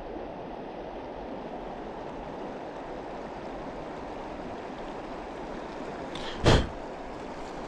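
Shallow mountain river rushing steadily over rocks, with one short, loud thump about six and a half seconds in.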